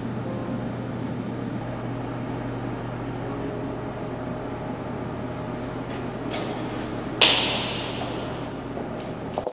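Steady low hum and hiss, broken a little after seven seconds in by one sharp bang that rings on for over a second, with a few lighter clicks around it; the sound cuts off abruptly at the very end.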